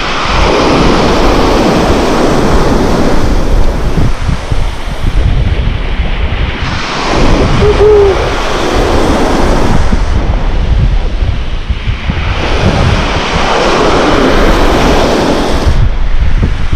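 Small waves breaking and washing up over a shallow sandy shore, in three surges several seconds apart, with wind rumbling on the microphone.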